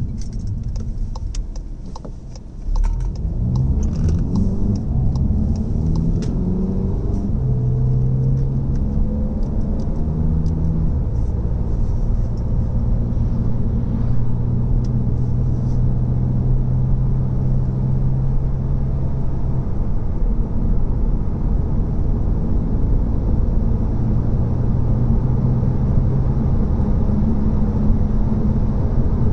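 Seat Leon's engine and road noise heard from inside the cabin. The car pulls away about three seconds in, and the engine note rises and steps down through several automatic upshifts, then settles into a steady low drone under tyre and road rumble at cruising speed.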